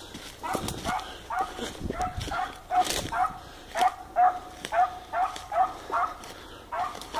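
A dog barking in quick, evenly spaced barks, about two or three a second, starting about half a second in. Brush and dry leaves crunch underfoot, most loudly about three seconds in.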